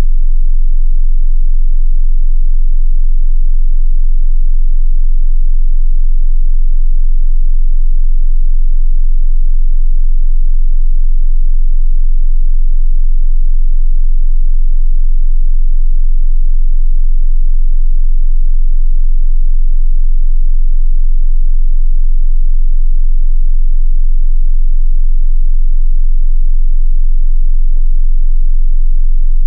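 A 22 Hz sine-wave bass test tone, held steady in pitch and level.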